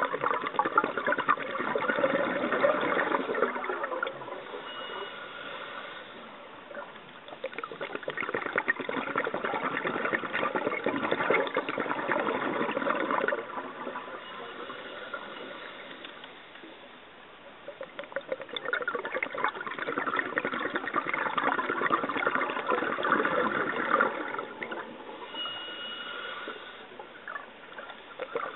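Scuba diver breathing through a regulator: bubbly, gurgling exhalations lasting about four to five seconds, about every ten seconds, three times. Quieter in-breaths fall between them, each with a faint high whistle.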